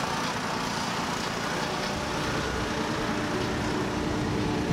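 Car engines running steadily, heard as an unchanging mix of engine sound and outdoor noise with a faint steady hum.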